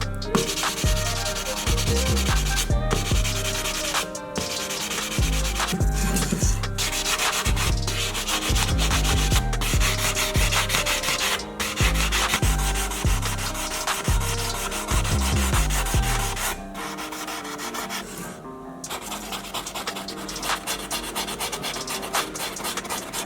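Sanding of a die-cast model car part: continuous scratchy rubbing with strokes. Background music with a bass line runs under it and drops out about 16 seconds in.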